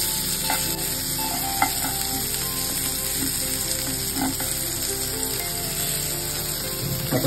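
Rice-flour-coated crab pieces shallow-frying in oil in a nonstick pan over a low flame, a steady sizzle. A flat spatula turns the pieces, with a few light taps and scrapes against the pan.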